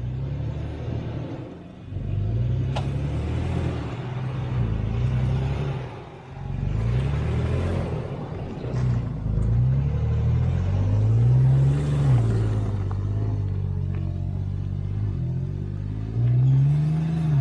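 Off-road 4x4's engine revving up and falling back again and again as it works at low speed, the pitch rising most sharply twice in the latter half.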